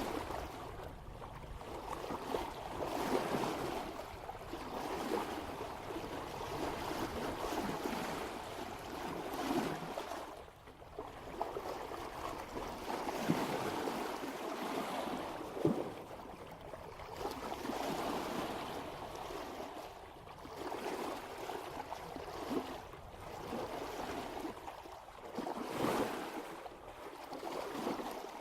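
Water rushing and splashing along a sailboat's bow as it sails at about 3 knots, swelling and easing every second or two with the swell, with a few sharper splashes.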